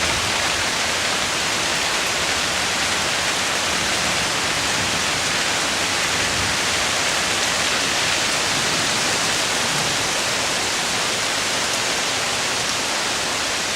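Heavy rain pouring down in a torrential downpour, a dense, steady hiss that holds even throughout.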